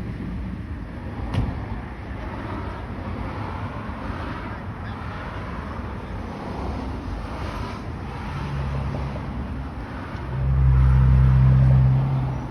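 Road traffic going by, with the low, steady drone of a heavy vehicle's engine that swells loud for a couple of seconds near the end.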